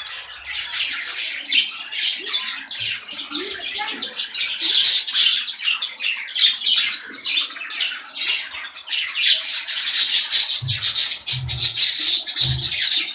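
A colony of budgerigars chattering, warbling and chirping together, densest in the second half. A few low thumps come near the end.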